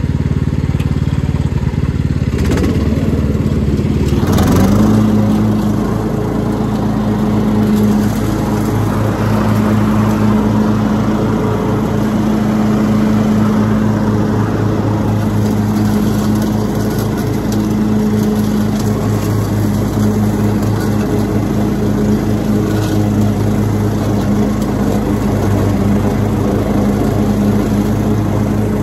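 Riding lawn mower engine running loudly. Its pitch rises about four seconds in, then holds steady as the mower drives across the lawn.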